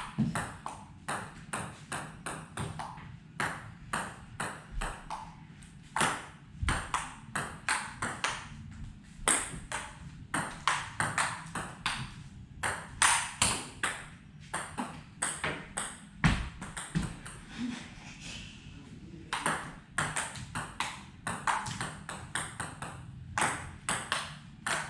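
Table tennis rally: a ping-pong ball clicking sharply off the paddles and bouncing on the table, about two strikes a second, with a short lull in the middle.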